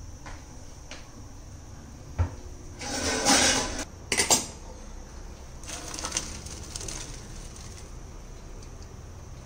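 Parboiled rice and its boiling water poured from a steel pot into a stainless steel colander: a clink of metal about two seconds in, then a loud gush of water for about a second and a half, and a second, quieter pour about six seconds in.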